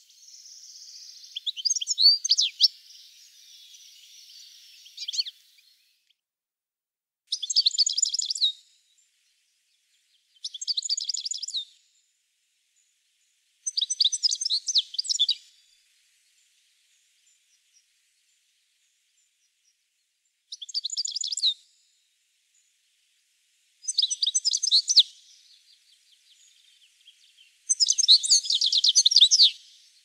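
European goldfinch singing: short phrases of quick, high twittering, about seven of them, each one to two seconds long with pauses between, the last the longest. A faint hiss sits under the first few seconds.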